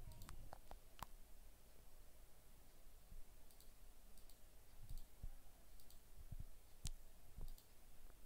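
Faint computer mouse clicks at irregular intervals, some in quick pairs, over low room hiss.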